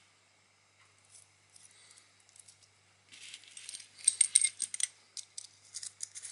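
Small metal clicks and scrapes of a thin steel mini circular saw blade being fitted onto a rotary-tool mandrel and its screw turned by hand. Scattered faint clicks come first, then a denser run of clicks from about three seconds in.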